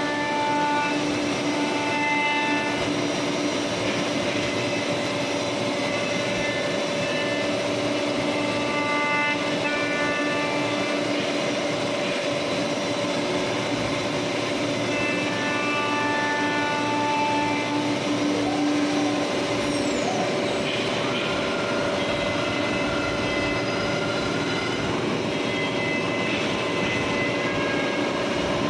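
A CF-MASTERT2-16 five-axis CNC router is milling a curved solid-wood part with its spindle and cutter. The sound is steady: a constant machining noise with high whining tones that come and go every few seconds.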